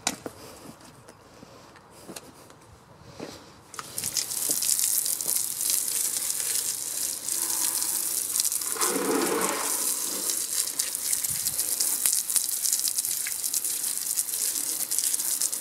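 Garden hose spray gun jetting water onto a car's rear wheel and tyre to rinse it. A loud, steady hiss of spray starts about four seconds in, and its sound briefly grows fuller around the middle.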